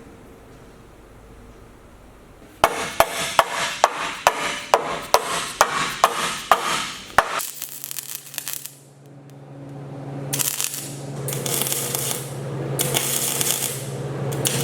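A hammer striking steel about a dozen times at a steady beat, a little over two blows a second. After that comes a steady low hum with repeated bursts of harsh hiss that build in loudness, from a machine at work on the frame.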